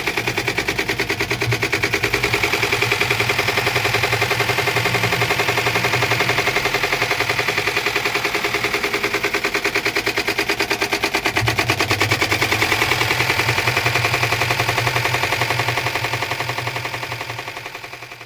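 Samsung washing machine running with a rapid, even rattling knock that goes on without a break: the top door noise fault. A low hum sits underneath, and the sound fades out near the end.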